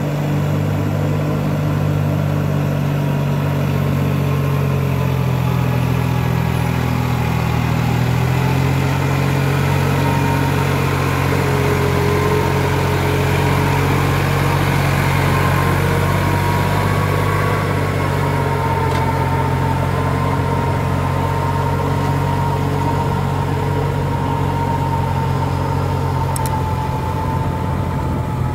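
Tractor engine running steadily while the tractor works through mud.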